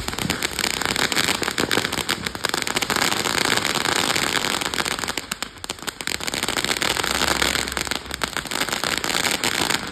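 Consumer fireworks going off in a dense, rapid run of crackling pops that lasts about ten seconds, then stops.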